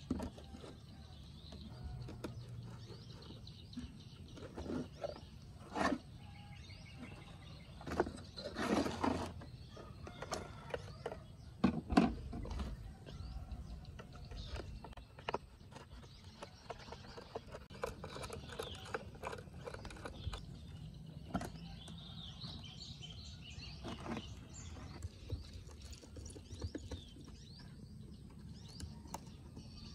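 Screwdriver and hands working on the dirt-caked plastic case of an old portable transistor radio: scattered clicks, scrapes and knocks, the loudest about twelve seconds in. Birds chirp faintly in the background.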